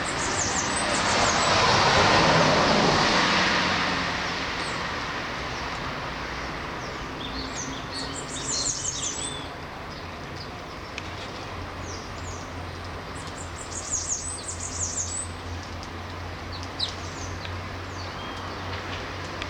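Small birds chirping and twittering in short clusters of quick high notes, several times. In the first few seconds a broad rushing noise swells and fades, louder than the birds.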